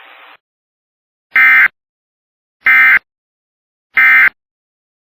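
Three short, identical bursts of Emergency Alert System SAME digital data tones, about a second and a half apart, as a NOAA Weather Radio warning ends: the end-of-message signal. A faint radio hiss cuts off just before them.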